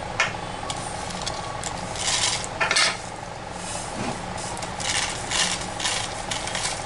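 Dry roasted whole spices, including cinnamon sticks, cardamom pods, cashews and melon seeds, tipped and scraped from a non-stick pan into a steel grinder jar. A rattling, scraping clatter comes in short spells, loudest about two to three seconds in and again around five seconds, over a faint steady hum.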